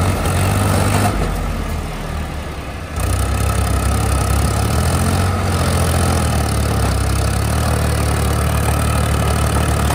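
Tractor diesel engine running hard under load while straining on a tow rope, its rear wheel spinning in the dry field. The engine sound sags for a moment and comes back up strongly about three seconds in.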